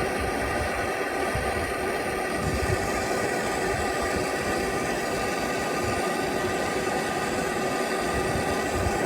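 Handheld gas torch burning steadily, its flame played on a seized oxygen sensor in the exhaust to heat it loose.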